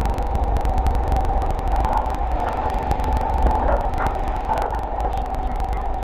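Coast Guard surf rescue boat's engine running hard through heavy surf as a steady drone, with wind rumbling on the microphone and many small clicks of spray.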